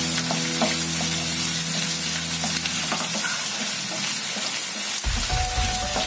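Chopped ginger and garlic frying in hot oil in a kadai with lentils, cashews and beans: a steady sizzle, with short scraping clicks as the mixture is stirred.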